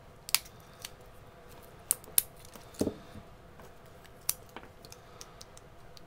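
Plastic scale and metal frame of a small pocketknife clicking and tapping as the scale is handled and pressed onto the knife to test the fit. A handful of sharp clicks come at uneven intervals, with one duller knock about halfway.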